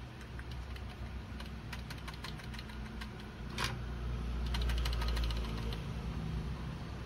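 A desktop PC running on the test bench: a steady low fan hum that grows louder about four seconds in, with scattered small clicks and one sharper click about three and a half seconds in.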